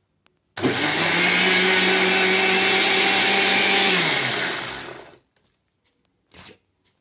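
Indian mixer grinder (mixie) with a stainless-steel jar churning milk cream with ice water into butter. It switches on suddenly about half a second in and runs steadily at speed for about three seconds. Then it is switched off and winds down, falling in pitch and fading out by about five seconds, followed by a light knock.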